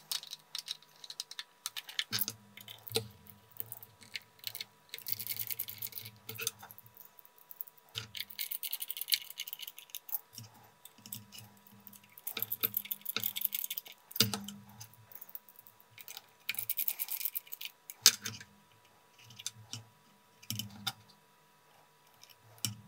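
Small screws being driven into a plastic baby-monitor camera housing with a precision screwdriver. This comes as about four bursts of rapid fine ticking, with scattered clicks and knocks from the plastic cover and camera body being handled.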